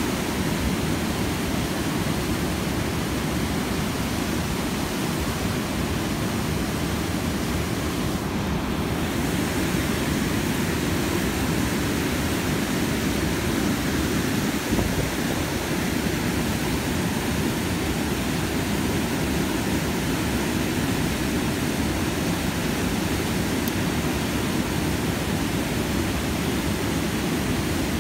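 River water pouring over a low-head dam and churning in the white water below it: a steady, deep rushing with no breaks.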